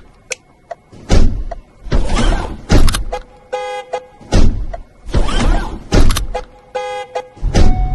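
Car sounds in a repeating pattern: loud rushing surges come roughly every second or so, and a short car horn honk sounds twice, about three seconds apart.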